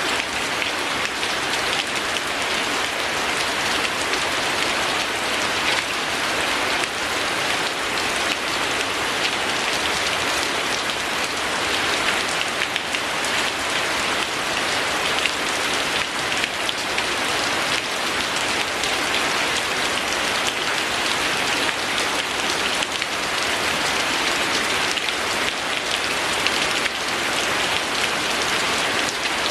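Steady rain falling on a surface: an even hiss with a dense patter of drops that holds unchanged throughout.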